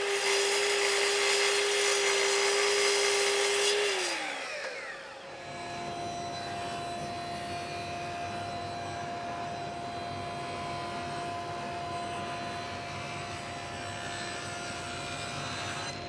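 A miter saw runs at full speed while cutting a maple board, then winds down with a falling pitch about four seconds in. After that, a table saw with a dust-collection hose runs as a steady hum while boards are fed through it.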